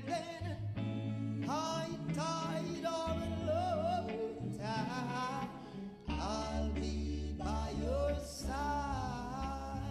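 Music with a singing voice holding long, wavering notes over steady bass notes.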